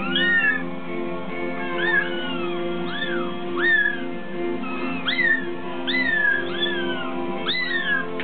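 Bengal kittens mewing over and over: short, high mews that rise and fall, about one or two a second. Background music with steady held low notes runs underneath.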